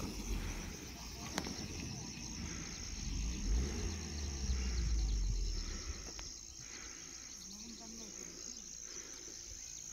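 A steady, high-pitched insect drone over a low rumble that swells in the first half and fades after about six seconds, with faint voices in the background.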